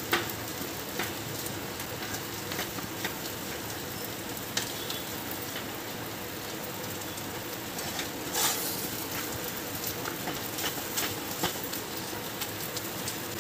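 Thick vegetable bhaji sizzling steadily in a frying pan as it is mashed, with a few scattered light knocks of the mashing tool against the pan.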